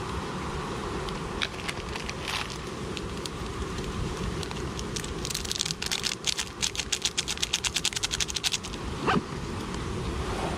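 Titanium spork clinking and scraping quickly inside a titanium kettle as noodles are stirred, at roughly ten strokes a second for about three seconds midway, over the steady rush of a lit MSR Micro Rocket canister gas stove. A brief thud follows near the end.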